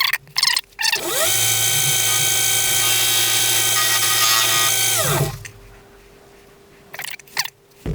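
Emco V10-P lathe spinning up about a second in, running with a steady whine for about four seconds, then winding down. Short bursts of noise come before it starts and again near the end.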